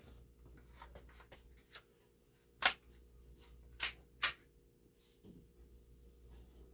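Three shots from a CO2-powered blowback airsoft pistol, the Steyr L9-A2, each a sharp crack: the first a little under three seconds in, the second about a second later and the third close behind it. Fainter clicks of handling come between the shots.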